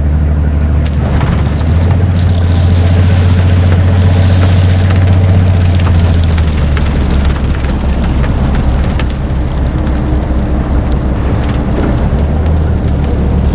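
Railway snow blower working into hard-packed snow: a deep, steady machine drone that grows louder about two seconds in and eases a little past halfway, with a hiss of snow being blown and scattered light ticks.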